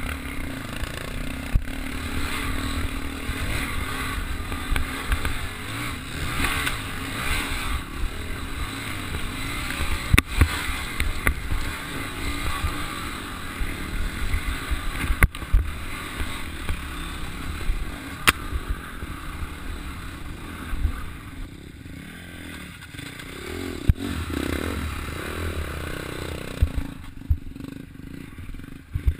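Dirt bike engine running and revving while ridden over a rough, rutted trail, with sharp knocks and clatter as bumps jolt the bike. The engine grows quieter over the last several seconds.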